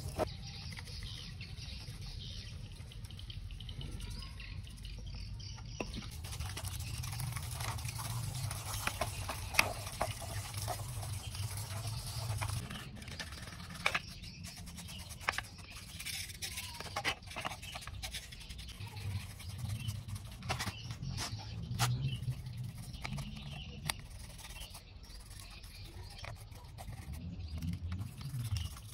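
Water from a hose splashing over a perforated metal cover and then a circuit board, with a stiff brush scrubbing the board. There are many small scratchy clicks and knocks through it.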